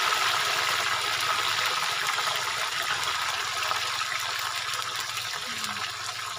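Hot oil in a wok sizzling hard as a load of crickets is tipped in to deep-fry, the sizzle slowly easing.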